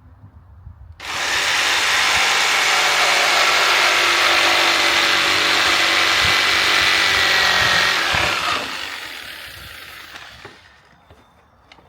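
Power saw cutting a thin sliver off the length of a wooden bed slat, starting suddenly about a second in and running steadily for around seven seconds before winding down as the blade spins to a stop.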